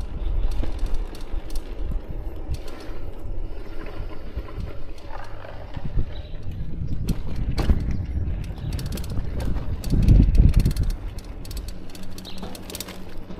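Bicycle rolling over cobblestones, its tyres and frame rattling in a dense run of small irregular clicks and knocks over a low rumble. The rumble swells loudest about ten seconds in.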